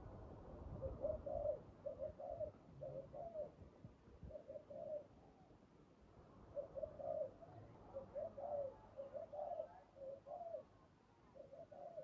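Spotted dove cooing: short phrases of low, repeated coos, in a first bout, a pause of about a second and a half near the middle, then a longer bout. A low rumble sits under the first few seconds.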